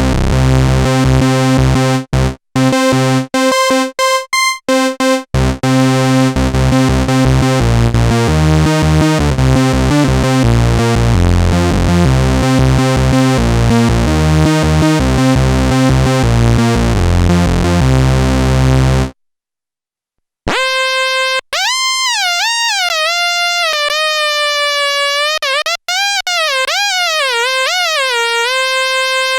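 Korg monologue monophonic analog synthesizer playing factory presets. First comes a buzzy, rapidly sequenced bass line. After a second or so of silence about 20 seconds in, it switches to a clean single-note lead that slides up and down in pitch.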